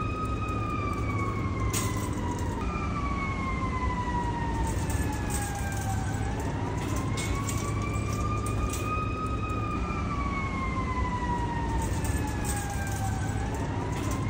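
A siren wailing, its pitch slowly rising and falling over several seconds at a time, with a sudden jump back up about three seconds in. Under it runs a steady low rumble.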